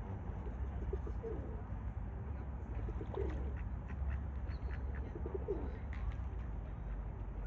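A bird calling three times, with short low-pitched calls spaced a couple of seconds apart, over a steady low rumble.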